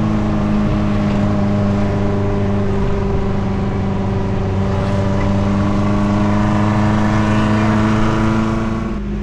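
Suzuki Jimny engine running steadily under load while driving. Its note drops suddenly near the end.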